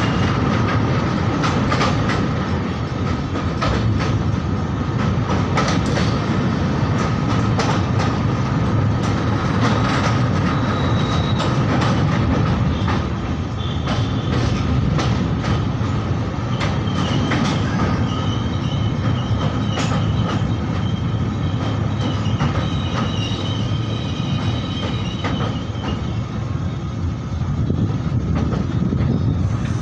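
A train running over an old iron railway bridge: a steady heavy rumble with the clatter of wheels over rail joints, and thin, high wheel squeals that come and go, mostly in the second half.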